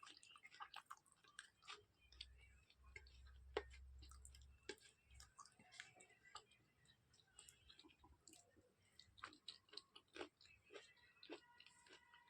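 Close-miked wet mouth sounds of eating rajma chawal with the fingers: irregular chewing, lip smacks and finger-licking clicks. A low rumble sits underneath for about three seconds near the start.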